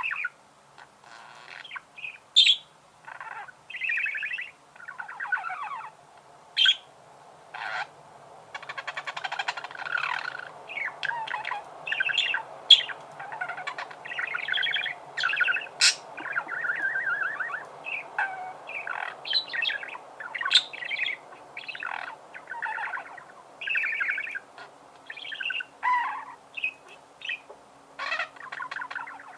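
Budgerigars warbling and chirping in quick, broken phrases, with sharp squeaky clicks mixed in.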